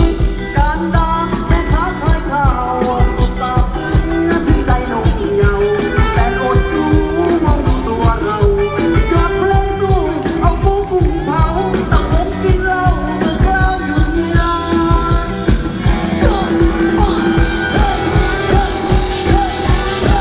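Thai ramwong dance song played by a live band: a singer over a steady, quick beat, loud and continuous.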